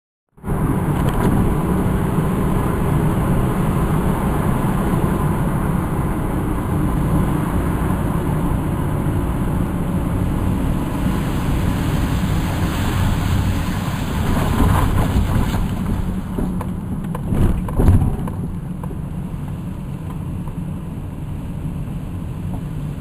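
Car interior noise while driving slowly on a wet, slushy road: steady engine and tyre noise that cuts in after a moment of silence. Two short, loud thumps about three-quarters of the way through, after which the noise is a little quieter.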